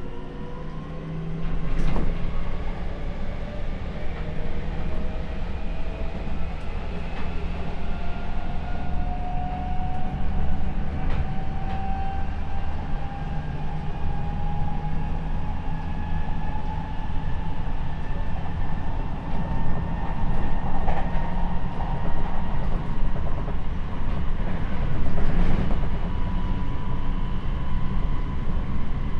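Seibu 6000 series electric train with Mitsubishi SiC VVVF traction equipment accelerating: the motor and inverter whine, several tones together, climbs slowly and steadily in pitch over the rumble of the wheels on the rails, with a few single clacks from rail joints.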